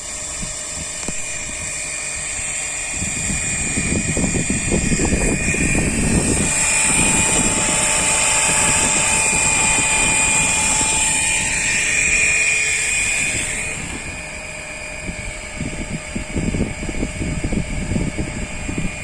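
Small electric oil-extraction pump whining steadily as it draws oil out through the dipstick tube, with uneven low sputtering in bouts. The whine drops in level about fourteen seconds in.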